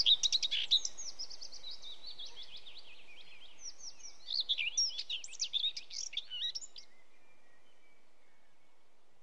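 Birds chirping and twittering in quick runs of high notes over a soft hiss, busiest at the start and again from about four seconds in. The chirps stop at about seven seconds, leaving the faint hiss fading away.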